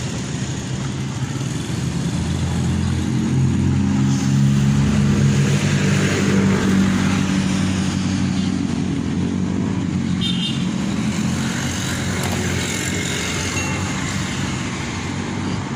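A motor vehicle's engine running with a steady low hum under traffic noise, swelling louder a few seconds in and then easing back.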